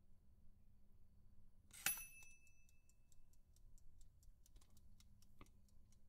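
Faint, irregular light ticks over a low steady hum, with one sharper metallic ping about two seconds in that rings briefly.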